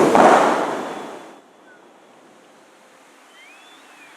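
Dubai Fountain's water jets crashing back down into the lake, a rushing spray that fades away over about a second and a half. After it, only faint background hiss with a few faint whistles near the end.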